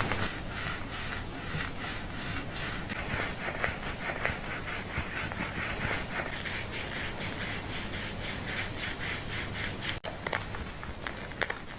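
Rapid, rhythmic scratching strokes on hair and scalp during a scalp-care massage, about five strokes a second. The strokes stop abruptly about ten seconds in, followed by a few scattered clicks.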